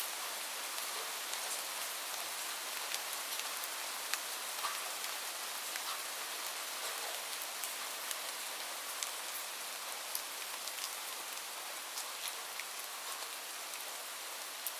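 Light rain falling steadily: an even hiss with many individual drops ticking on a surface.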